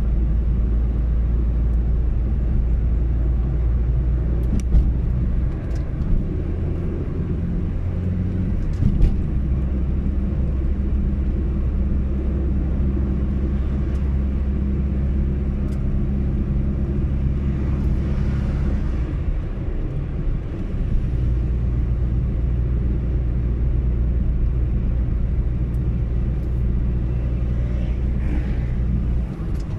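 A car being driven, heard from inside the cabin: a steady low engine drone and road rumble. The engine note shifts about twenty seconds in, and there are a couple of faint clicks early in the drive.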